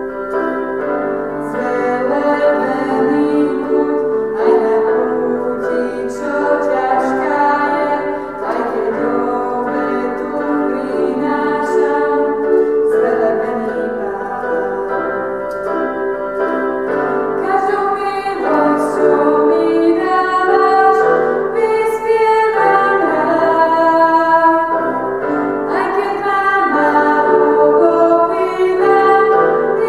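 Two women singing a hymn to piano accompaniment played on a stage keyboard, the voices holding long notes over struck piano chords.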